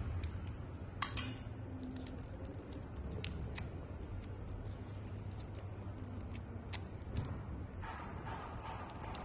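Scattered short, sharp clicks and snips of small tools and parts being handled while working on an e-bike controller's wiring, the loudest a double click about a second in, over a low steady hum.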